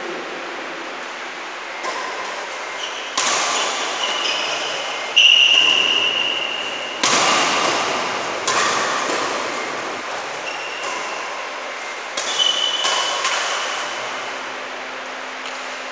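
Badminton rally: rackets strike the shuttlecock about every one to two seconds, each hit echoing in a large bare hall, with shoes squeaking on the court floor between shots.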